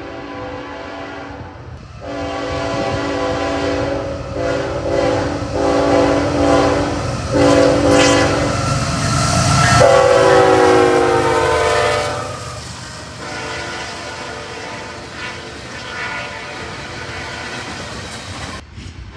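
CSX diesel locomotive's multi-chime air horn sounded in a series of blasts. The chord drops in pitch as the locomotive passes about ten seconds in, then sounds fainter over the steady clatter of the train's wheels on the rails.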